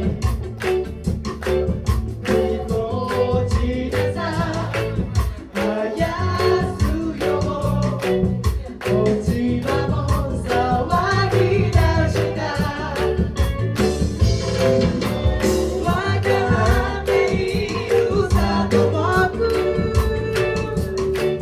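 Many voices singing a song together in a live group singalong, over instrumental accompaniment with a steady beat.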